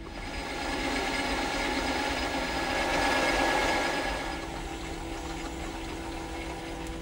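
Small metal lathe running while a drill in the tailstock chuck bores the centre hole through a spinning brass plate. The cutting noise swells about a second in and eases after about four seconds, leaving the steady hum of the lathe.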